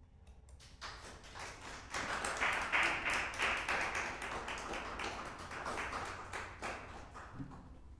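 Small audience applauding. The clapping starts thinly, is fullest from about two seconds in, and thins out near the end.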